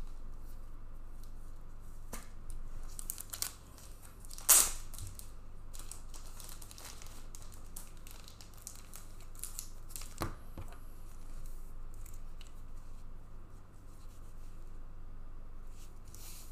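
Hands handling trading cards and their pack wrappers: scattered rustling and tearing, with a sharp click about four and a half seconds in and another about ten seconds in, over a low steady hum.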